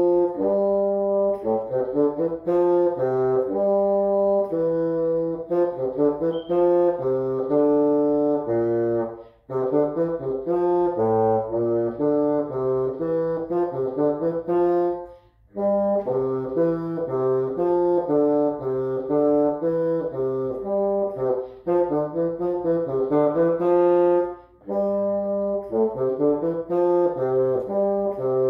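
Solo bassoon playing a march melody in short, separate notes, the phrases broken three times by brief pauses for breath.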